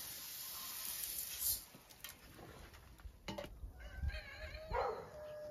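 Grain shaken through a sieve onto a metal tray, a rattling hiss, for about the first second and a half. Later, after a single knock, chickens call with wavering, pitched calls.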